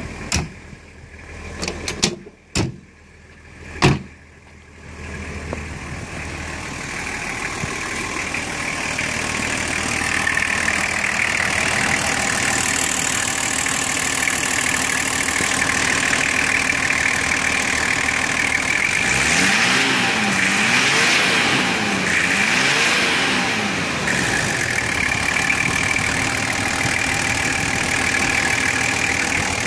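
A few sharp clunks of a car door being shut in the first four seconds, then the Nissan Patrol's 2.8 litre straight-six turbodiesel idling steadily, heard up close at the open bonnet.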